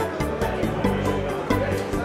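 Music with a steady beat, held notes over a stepping bass line.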